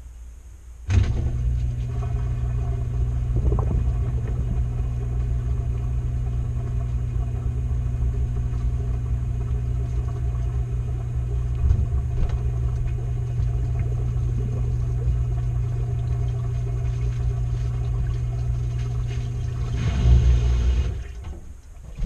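Washing machine drum turning with clothes inside, heard from within the drum: a steady motor hum starts suddenly about a second in, runs for about twenty seconds, swells briefly near the end and stops, one stretch of the wash cycle's tumbling.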